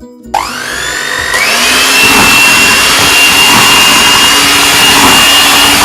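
Electric mixer motor starting up with a rising whine about a third of a second in, jumping higher about a second later, then running loud and steady with a high whine as it beats cake batter.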